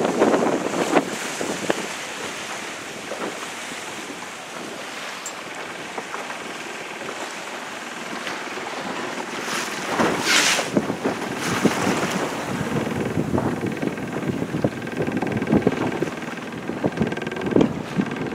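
Wind buffeting the microphone over the wash of waves and water on the open sea, in uneven gusts. A brief, sharp hiss comes about ten seconds in.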